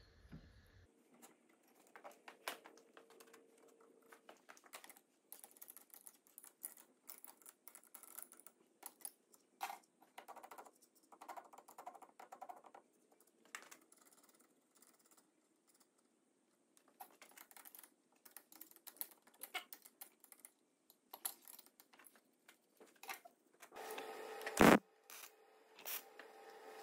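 Faint, irregular light metal clicks and taps of parts being handled and fitted. Near the end, two short bursts of MIG tack welding crackle, each ending in a sharp loud crack.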